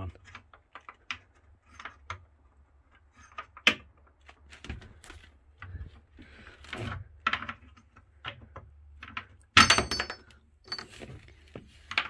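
Clicks and knocks of a hand working the rotary knob of a boat's battery kill switch, trying to turn it on, with a louder clatter of strokes about ten seconds in.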